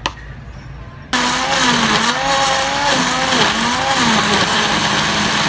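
Electric blender grinding onion, garlic and ginger with a little water into a paste: a click, then about a second in the motor starts. Its pitch wavers for the first few seconds, then holds steady.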